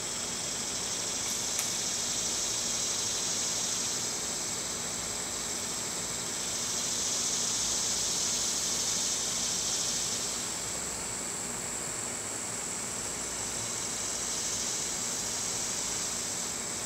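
Steady droning air noise from an air conditioning unit, under a high insect chorus of cicadas and crickets that swells louder a few seconds in and again near the end.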